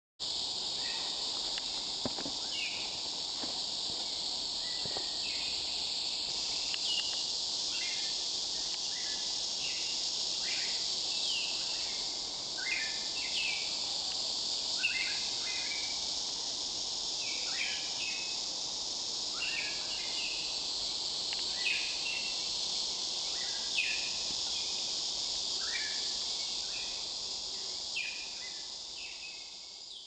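Forest night ambience: a steady, high-pitched insect drone with short chirping animal calls repeating every second or two over it. It fades out near the end.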